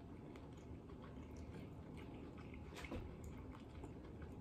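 A person chewing a mouthful of bacon-wrapped jalapeño popper, faint wet mouth clicks with one sharper click about three seconds in.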